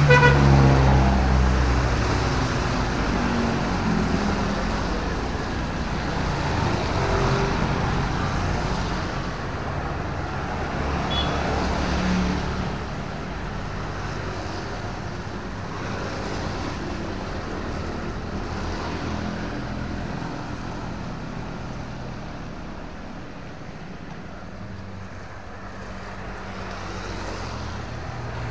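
A motor vehicle passes close at the start, its engine note dropping as it goes by. Its noise fades over the next ten seconds or so into a steadier, quieter road-traffic hum.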